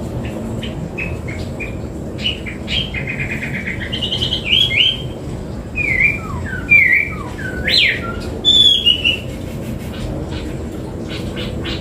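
Chinese hwamei singing: a run of short repeated notes builds up, then gives way to varied loud whistled phrases, some sliding up and down in pitch.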